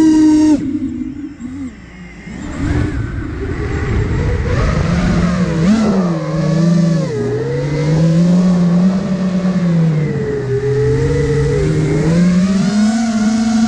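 iFlight Nazgul Evoque F5 HD FPV quadcopter's brushless motors and propellers whining, the pitch rising and falling with the throttle. The pitch drops sharply near the start and the sound goes quieter for about two seconds, then climbs back and keeps wavering.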